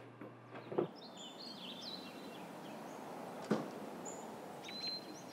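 Outdoor ambience with small birds chirping on and off. There is a thump just before a second in and a sharper knock about three and a half seconds in.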